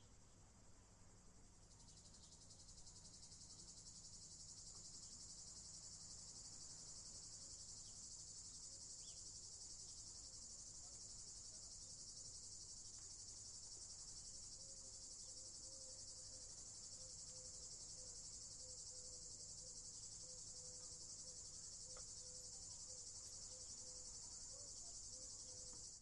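Cicadas buzzing in chorus: a high, even, continuous drone that sets in about two seconds in and then holds steady.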